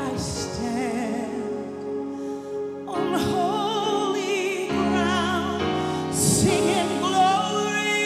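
Live worship song: a woman sings the lead with a wide vibrato over sustained instrumental accompaniment, the singing growing louder about three seconds in.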